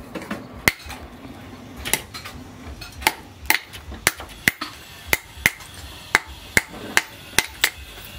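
Hand hammer forging a red-hot steel cleaver blank, cut from chainsaw steel, on a small anvil: a steady run of sharp, ringing metal-on-metal strikes, about two a second, after a brief pause near the start.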